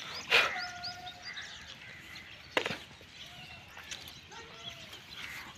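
Small birds chirping in open country, with two short, sharp knocks or clicks, the louder one just after the start and another about two and a half seconds in.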